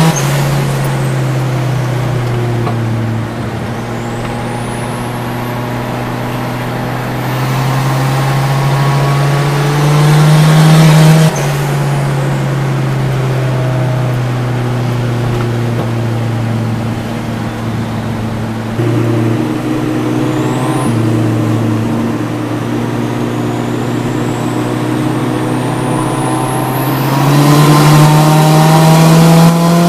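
Turbocharged Nissan GA16DE 1.6-litre four-cylinder engine heard from inside the cabin on a drive. Its pitch climbs under throttle and drops sharply at gear changes, about a second in and again about eleven seconds in, then climbs again near the end. A high whistle rises over it now and then.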